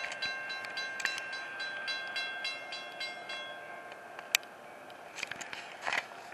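Railroad grade-crossing warning bell ringing in quick repeated strikes, about three a second, stopping a little past halfway. A sharp click and a few handling knocks follow.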